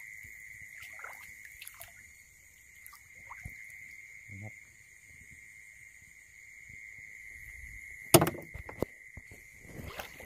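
Steady, high-pitched night chorus of calling insects by a stream, a constant trill. Scattered small clicks and splashes of wading, with a loud thump about eight seconds in and another clatter near the end.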